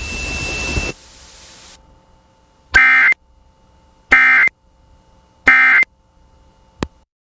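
Emergency Alert System end-of-message data: three short, identical bursts of digital tones about a second and a half apart, marking the end of the alert broadcast. They follow about a second of radio hiss.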